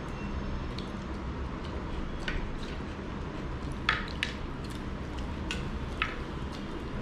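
Eating rice and curry by hand: wet, squishy mouth and finger sounds with several short, sharp smacks and clicks, the loudest about four seconds in, over a steady low hum.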